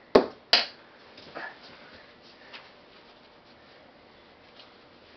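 Two sharp knocks in quick succession at the start, then only faint scattered ticks and room tone.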